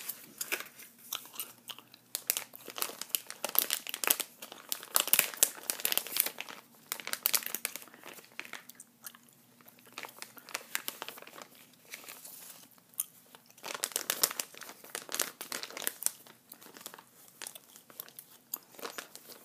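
Plastic wrapping of a sticker pack crinkling and crackling as it is handled close to the microphone. The crackling is busiest a few seconds in and again past the middle, with softer handling between.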